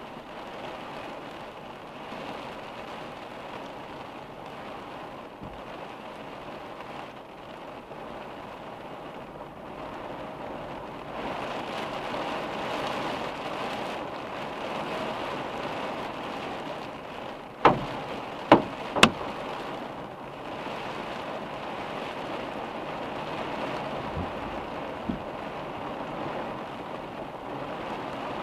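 Hard rain drumming steadily on a vehicle's windshield and roof, heard from inside the car, growing heavier about a third of the way in. Just past halfway come three sharp knocks within about a second and a half, louder than the rain.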